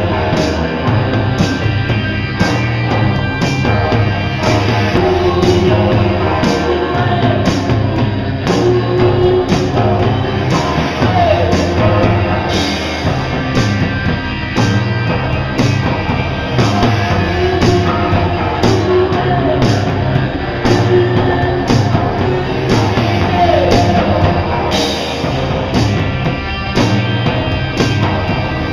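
Rock band playing live: electric guitar and bass over a steady drum beat of about two hits a second.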